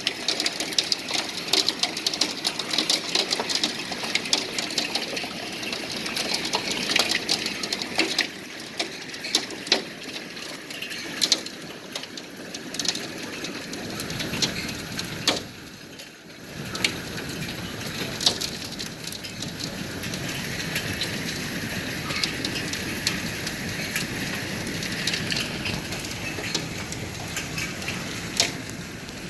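Hailstones falling and striking hard surfaces: a dense run of sharp clicks over a steady rain-like hiss. The clicks thin out after a brief lull about halfway, leaving mostly the hiss of falling precipitation.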